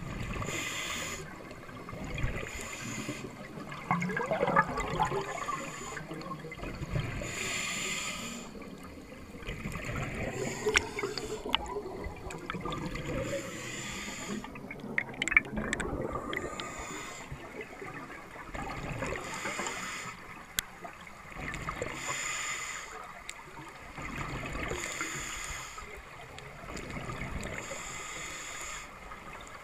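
Scuba diver breathing through a regulator underwater: the hiss and rush of breaths every few seconds, with exhaled air bubbling and gurgling past. A few sharp clicks come in about halfway through.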